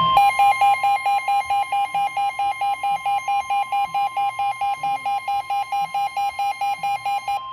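NOAA Weather Radio warning alarm tone: a steady 1050 Hz tone, with a weather-radio receiver's alarm beeping about four times a second over it. This signals an incoming severe weather warning. The beeping stops near the end while the steady tone goes on.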